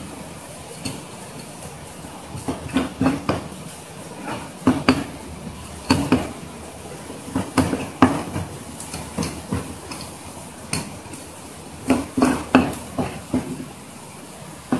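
A knife knocking and tapping on a plastic cutting board while a pufferfish is cut up, in irregular clusters of sharp knocks over a steady background hiss.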